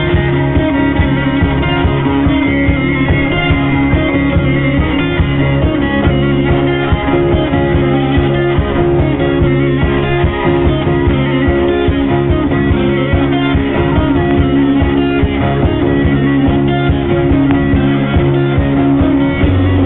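Band music with no singing: a guitar carries the lead over steady bass notes and a regular drum beat.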